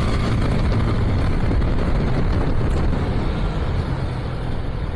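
Steady rushing road and wind noise from a motorcycle ride in traffic, with the bike and surrounding vehicles running underneath.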